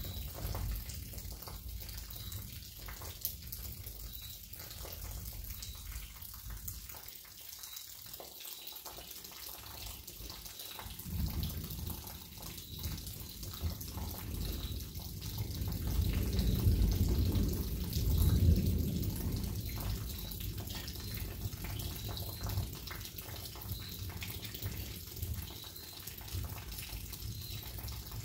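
Steady rain falling during a thunderstorm, with low rolls of thunder: one rumble dies away in the first several seconds, then a long roll builds about eleven seconds in, is loudest a few seconds later and slowly fades.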